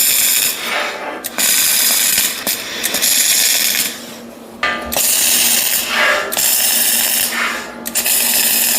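Wire-feed (MIG/CO2) welder laying tack welds on steel plate: about six short bursts of arc crackle, each around a second long, with brief pauses between them. A steady low hum runs underneath.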